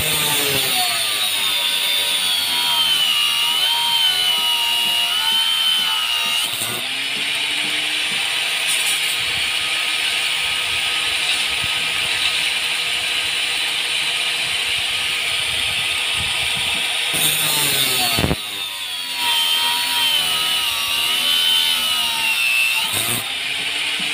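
Angle grinder with a cut-off disc cutting steel reinforcing bar into short lengths for tie-beam stirrups. The motor's whine sags in pitch as the disc bites, and a few times it briefly slows and picks up again between cuts.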